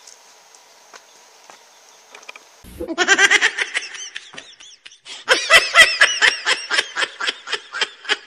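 A person laughing loudly in two bouts of quick, pitched ha-ha pulses: a short one about three seconds in and a longer one from about five seconds in. Crickets chirr faintly underneath.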